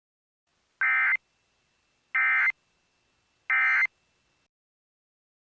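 Three short, identical bursts of buzzing digital data tones, about a second and a half apart: the Emergency Alert System end-of-message code sent three times to close the alert.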